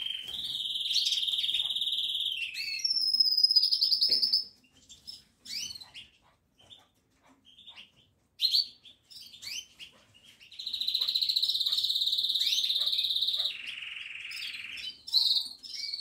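Small yellow finches singing: long, rapidly pulsing trills that switch pitch several times, then a stretch of scattered short chirps, then another long trill from about ten seconds in that steps down to a lower trill.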